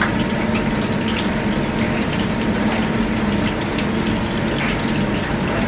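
Oatcake rolls deep frying in a deep fat fryer: hot oil bubbling and sizzling steadily with small crackling pops, over a constant low hum.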